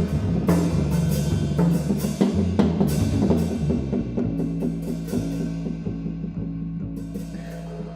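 Live jazz trio: a drum kit plays busily with cymbal crashes over low double bass notes. About halfway the drumming thins out and a long held low note takes over, fading toward the end.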